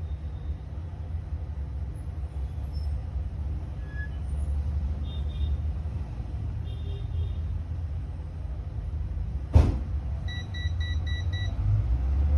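Steady low rumble, with a sharp click about two-thirds of the way in. Short high electronic beeps come faintly twice in the middle and as a quick run of about five near the end.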